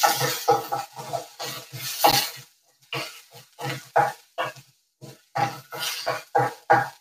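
Wooden spoon scraping and knocking against an aluminium kadai while stirring chopped onion and garlic in oil, in quick repeated strokes with a couple of short pauses.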